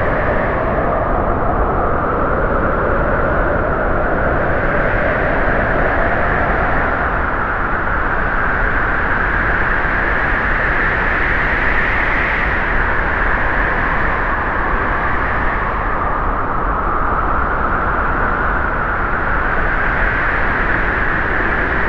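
Strong snowstorm wind blowing steadily, a loud rushing noise whose pitch slowly rises and falls with the gusts.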